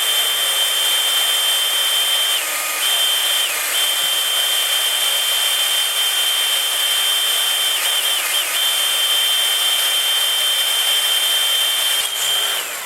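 Power drill with a 6.75 mm bit boring into the steel swinging arm for a grease-nipple hole, lubricated with oil. The motor runs with a steady high whine that dips briefly in pitch a few times as the bit bites, and it stops near the end.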